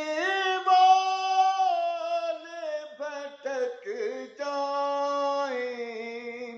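A man singing a naat solo and unaccompanied, drawing out long ornamented notes that slide between pitches, with short pauses for breath between phrases.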